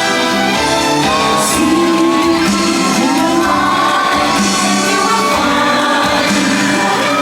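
Orchestral show music with brass and a high singing voice holding and sliding between long notes, played loud over a show's sound system, with some crowd whoops.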